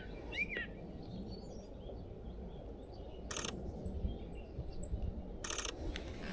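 Two short bursts of rapid camera shutter clicks, about two seconds apart, as a Sony A1 fires burst shots. Small birds chirp briefly over a low outdoor background hum.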